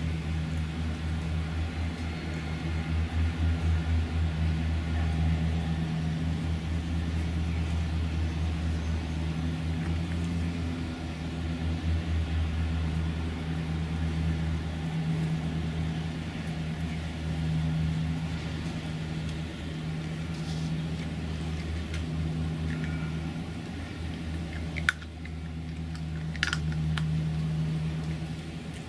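Steady low rumble of urban traffic that swells and fades slightly over a few seconds, with two sharp clicks near the end.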